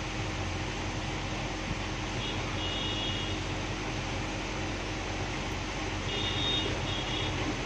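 Steady hum and hiss of a fan running. Two faint clusters of short high-pitched tones sound about two and six seconds in.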